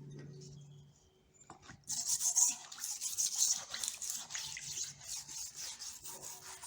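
Brush scrubbing a vinegar-soaked rusty steel tool, most likely the center punch, to loosen the rust: rapid back-and-forth strokes that start about two seconds in. A faint low hum fades out in the first second.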